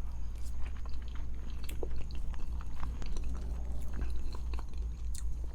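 A person chewing a first mouthful of cheese grits close to the microphone: soft, irregular wet mouth clicks and smacks, over a faint steady low hum.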